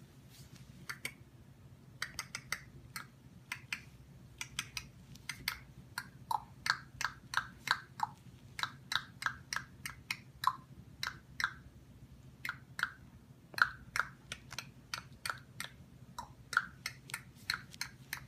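A baby rattle shaken in short flicks, giving a run of sharp rattling clicks. They start sparse and become steadier after a few seconds, about two to three a second.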